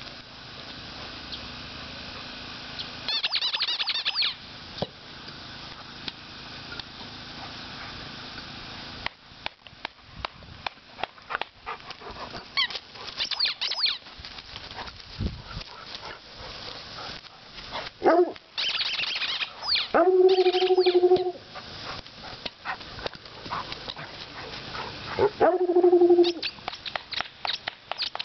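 Squeaking rubber dog ball squeezed in an Airedale Terrier's jaws, giving two long, steady, low squeaks of about a second each in the second half, with quick clicking and birds chirping in between.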